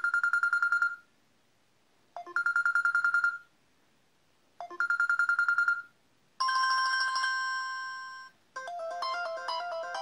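Preloaded Samsung Galaxy A5 (2015) ringtones previewed one after another through the phone's speaker. First comes a short electronic ringing trill that repeats three times, about every two and a half seconds. Then a two-note chime rings out and fades, and near the end a tune of quick melodic notes begins.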